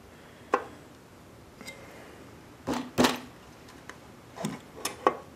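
A few short, light clicks and knocks of metal, the loudest pair about three seconds in, as a small piston with its rings is worked by hand into the cylinder bore of a Briggs & Stratton engine block.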